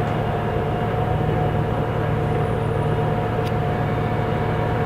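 Volvo B290R bus with Voith automatic gearbox running at a steady speed: a constant engine rumble with a steady whine held at one pitch. A brief click about three and a half seconds in.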